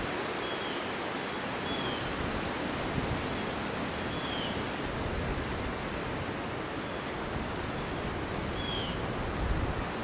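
Steady rushing outdoor background noise, with a few faint, short whistled bird chirps every few seconds.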